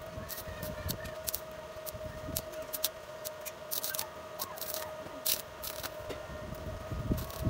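Stick (MMA) arc welding on square hollow steel, the arc crackling and spitting in irregular bursts. A steady high hum runs underneath.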